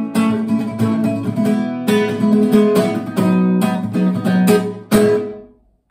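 Acoustic guitar strummed in a steady rhythm of chords, changing chord about two seconds in; the last strum rings out and dies away just before the end.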